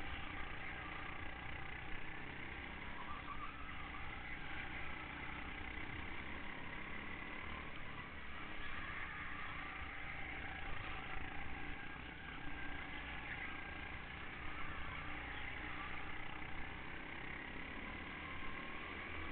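Racing kart engine running steadily under load, heard from a camera mounted on the kart as it laps the track.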